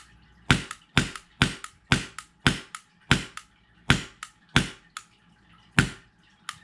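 Polarstar Kythera HPA airsoft engine firing single shots: about ten sharp pops, roughly two a second with a short pause near the end, each followed by a fainter click. The gun is being test-fired on a newly fitted grip air line.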